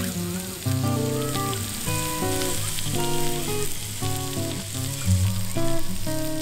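Meat and bell peppers sizzling on a hot griddle plate, a steady frying hiss. Instrumental background music with changing notes plays over it and is as loud as the sizzle.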